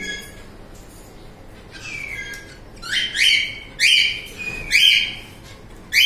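A baby bird held in the hand gives repeated shrill squawking calls, about one a second. Each call sweeps up in pitch and then holds, and the calls get louder from about three seconds in.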